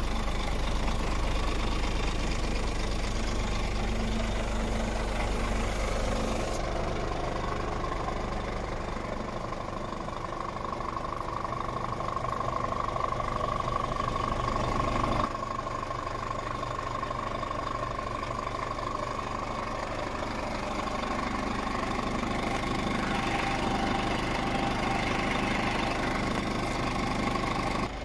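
Scania R450's 13-litre six-cylinder diesel idling steadily, with a steady whine over the engine note. The sound shifts abruptly twice.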